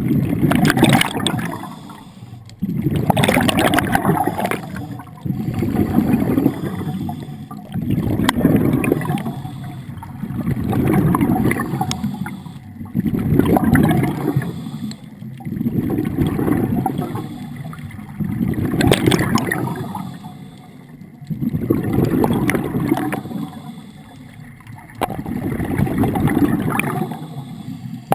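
Scuba breathing through a regulator underwater: regular surges of exhaled bubbles gurgling and rumbling, about one every two and a half seconds.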